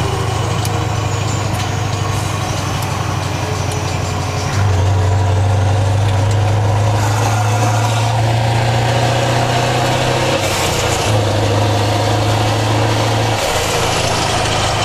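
Scania 164L 480's V8 diesel engine heard from inside the cab while driving, a steady low engine note. It grows louder about a third of the way in, breaks briefly past the middle, and eases back near the end.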